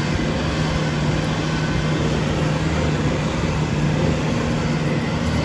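Bobcat T770 skid steer's diesel engine running at a steady speed, a constant low drone with no change in pitch.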